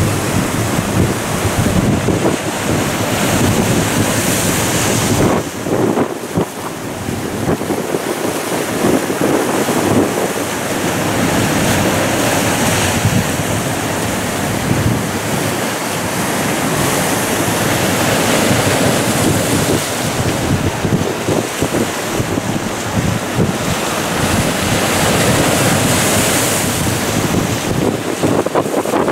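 Rough sea waves breaking and washing over rocks along a sea wall. Strong wind buffets the microphone, giving a loud, continuous rush that swells and eases.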